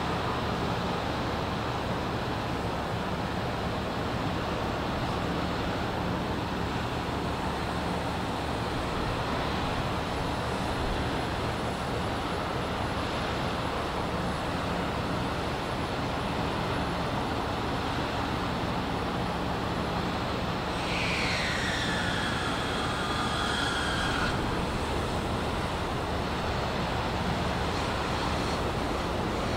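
Steady low drone of a docked Ro-Ro passenger ferry's engines and machinery running, with a faint low hum. About two-thirds through, a high squeal glides downward for a few seconds.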